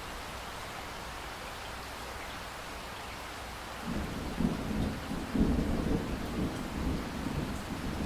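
Steady hiss of falling rain. About halfway through, a low rumble of thunder comes in and swells over it.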